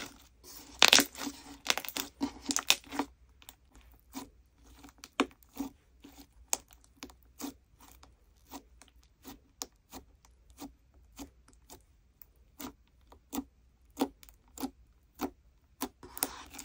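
Hands squeezing and kneading thick glossy slime, with dense sticky crackling for the first few seconds, then fingertips pressing into it at a steady pace, a short wet pop at each press, about one and a half a second. A burst of denser crackling comes near the end.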